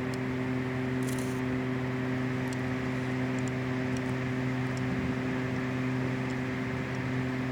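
Steady machine hum, unchanging in pitch and level, with a brief rustle about a second in.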